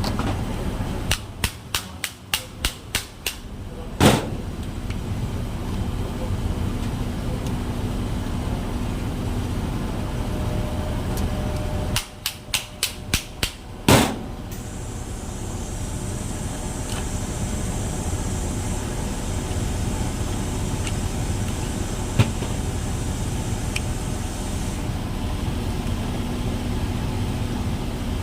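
Twice, a run of quick light hammer taps on metal, about three a second, ends in one harder blow, over a steady running noise; a faint high whine comes in after the second run.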